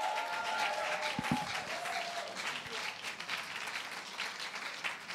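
An audience in a hall clapping steadily, a dense patter of many hands that eases slightly toward the end.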